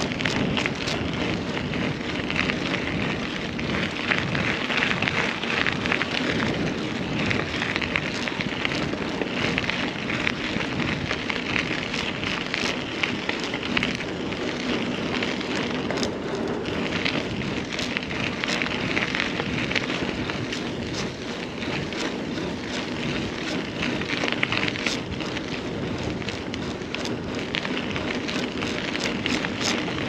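Mountain bike rolling along a rough trail: tyre noise and drivetrain and frame rattle, a steady rush dotted with many small clicks.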